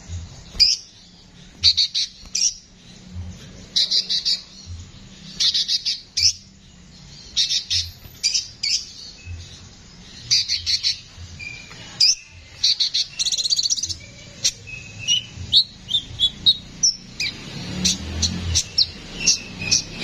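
Male sunbird singing: rough, rapid chirping phrases repeated about once a second, turning to more varied single notes in the last few seconds.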